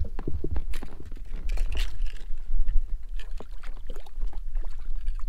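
Small boat on the lake with a trout held in a landing net alongside: irregular light knocks and water sloshing against the hull and net, over a steady low rumble.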